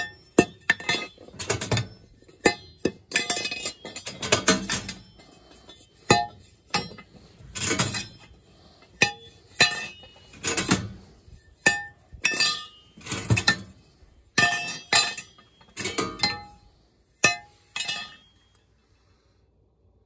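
Irregular metallic clinks and taps with a short ring, about one every half second to a second, from metal parts of a gas steam boiler's burner section being handled and knocked during burner cleaning. They stop a couple of seconds before the end.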